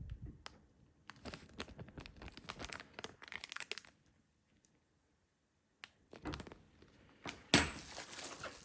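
Packaging crinkling and rustling as it is handled and sorted through, in runs of small crackles. It stops for a moment around the middle, then the handling resumes, with one sharper knock near the end.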